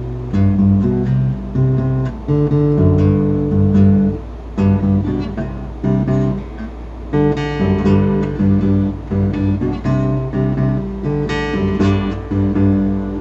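Acoustic guitar strummed and played chord by chord, each strum a sharp attack followed by ringing chord tones.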